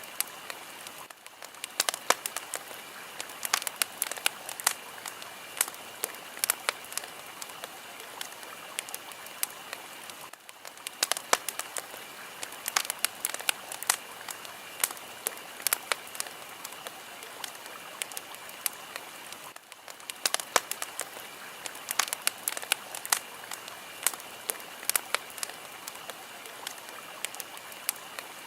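Fire crackling: a steady hiss with sharp pops and snaps several times a second. The sound dips briefly about every nine seconds.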